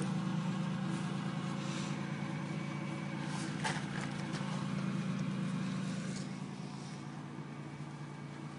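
Vehicle engine idling steadily close by, with a few short scrapes and clicks about two and four seconds in; it grows slightly quieter near the end.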